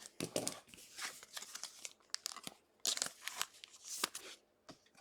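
Crinkling and rustling of plastic and paper wrappers as trading cards are handled and unwrapped, coming in irregular bursts with short pauses between.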